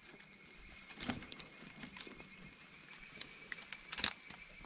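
Quiet outdoor background: faint scattered taps and rustles, with a faint, steady high-pitched tone held under them.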